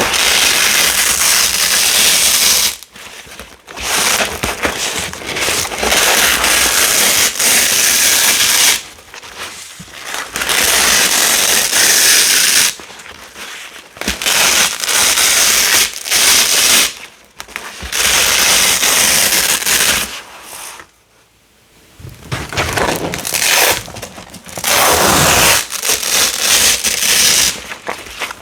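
White hook-and-loop (velcro) tape from a big roll being peeled apart, a crackling rip in long pulls of a few seconds each, about seven of them, with short pauses between.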